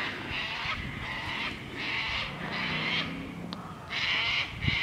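A crow cawing over and over, a run of harsh calls at roughly two a second with a short break about three and a half seconds in.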